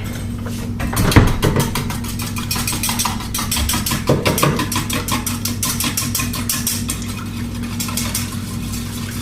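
Wire whisk beating eggs in a bowl: rapid, even clicking of the wires against the bowl, over a steady low hum.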